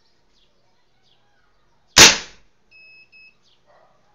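A single sharp shot from a PCP air rifle firing a pellet, about two seconds in, fading quickly. Just after it come two short high beeps from the chronograph as it registers the pellet's speed.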